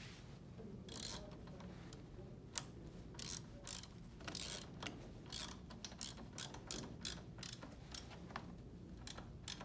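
Hand driver with a long T25 Torx bit turning a screw at a vacuum inlet flange: a run of irregular clicks and ticks as the driver is worked in short turns.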